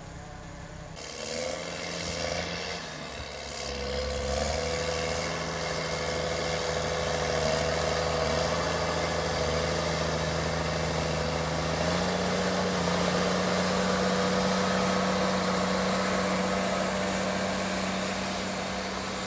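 A large farm machine's engine running steadily, picking up speed a few seconds in and stepping up again past the middle. A thin high whine sits above it from about four seconds on.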